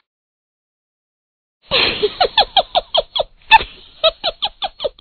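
High-pitched laughter in quick 'ha-ha' bursts, each sliding down in pitch, about six a second, starting after a moment of dead silence.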